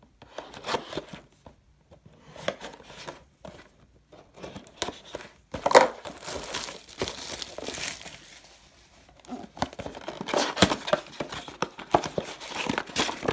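Cellophane shrink wrap on a trading-card blaster box being slit, torn off and crumpled, then the packs handled: irregular crinkling and tearing with short pauses, a sharp loud crackle about six seconds in and denser crinkling near the end.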